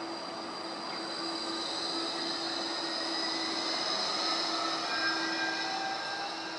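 Bombardier Flexity 2 light-rail tram passing: a steady electric hum with several high whining tones from its motors and wheels, some gliding slowly in pitch and getting a little louder about four seconds in.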